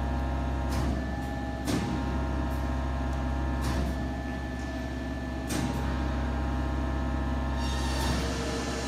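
Tensile testing machine running with a steady hum during a load test on a conductor pulley. About five sharp clicks are scattered through, and a hiss comes in near the end.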